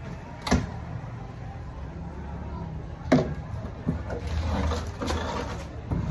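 Two sharp knocks, about two and a half seconds apart, then a few lighter knocks and a rustling sound, over a steady low hum.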